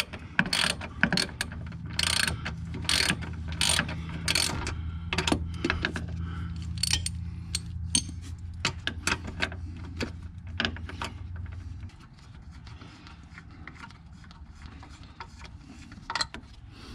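Hand ratchet clicking in quick irregular runs as it backs out the 13 mm bolts of a C5 Corvette's rear shock upper mount plate; the clicks thin out in the last few seconds. A steady low hum runs underneath and stops about twelve seconds in.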